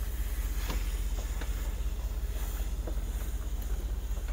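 Truck driving slowly along a dirt forest track: a steady low rumble of engine and tyres, with a high wind hiss and a few faint ticks.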